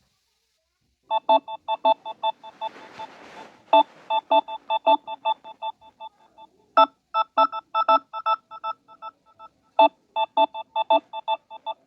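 Electronic beeping: after about a second of silence, a rapid, uneven run of short, high, multi-tone beeps starts and keeps going in clusters, like a phone alert tone.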